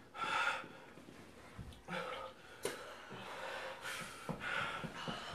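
People breathing hard, with several short gasps and forceful exhales through the mouth, from the burn of eating whole dried Carolina Reaper peppers.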